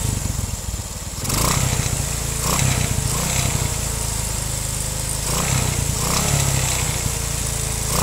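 Honda Kirana's 125 cc four-stroke single-cylinder engine running steadily, louder from about a second in and picking up briefly a few more times.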